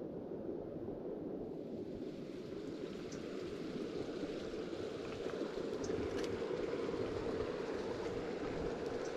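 Creek water flowing steadily, with a couple of faint clicks.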